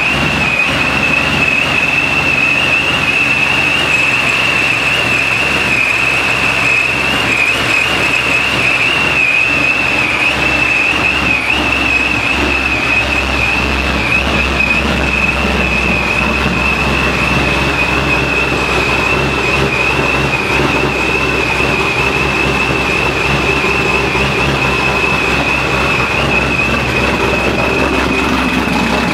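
Supercharged 441 cubic-inch LSX V8 idling steadily, with the belt-driven ProCharger F-1R supercharger whining at one high, steady pitch over the engine's low hum.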